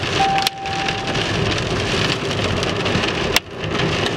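Rain pelting a car's windshield and roof, heard from inside the car with the wipers sweeping, as a steady hiss. A steady electronic beep tone sounds for about a second near the start, and there are two sharp knocks: one about half a second in and one near the end.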